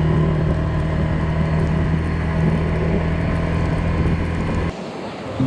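A vehicle engine running steadily with a low hum, cut off abruptly near the end.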